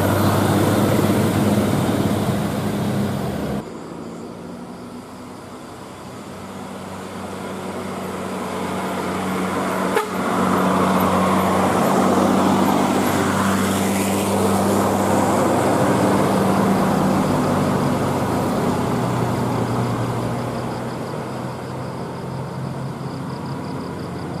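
Buses running past on a road, their engines droning, with horn toots. The sound drops off abruptly about three and a half seconds in, and a sharp click comes about ten seconds in before it swells again.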